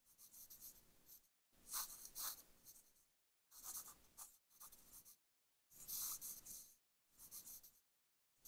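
Pencil sketching on sketchbook paper: quiet scratchy strokes in about seven separate bursts, each half a second to a second and a half long, with short pauses between.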